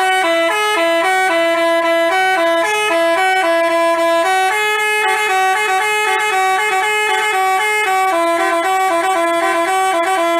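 Bus 'telolet basuri' musical air horn playing a quick tune, loud and unbroken, its notes changing several times a second.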